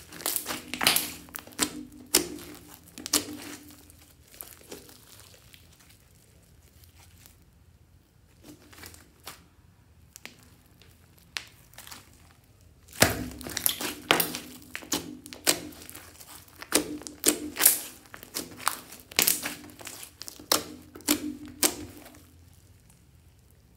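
Hands kneading, pressing and stretching a large mass of slime, giving clusters of sharp crackling pops. There is a quieter stretch in the middle with only a few pops, then dense crackling again from a little past halfway.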